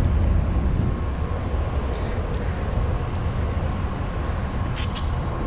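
Steady low rumble of outdoor background noise, with two quick clicks near the end.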